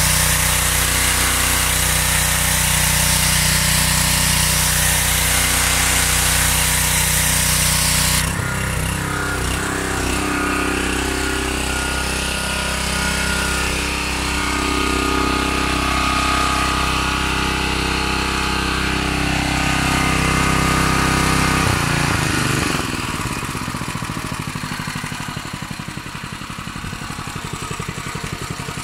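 Mechpro 7 hp single-cylinder petrol pressure washer running. For the first eight seconds the high-pressure jet hisses from the lance over the engine. Then the trigger is let go, and the engine runs on alone; about 22 seconds in its note drops and it grows gradually quieter.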